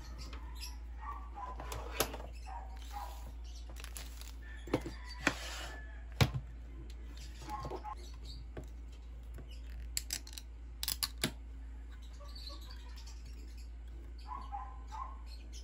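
Hands handling a drink can and an ice-filled glass mug on a desk: scattered light clicks and taps, the loudest about six seconds in, a quick cluster of clicks around ten to eleven seconds, and brief rustles between. A few faint high chirps come near the start and end.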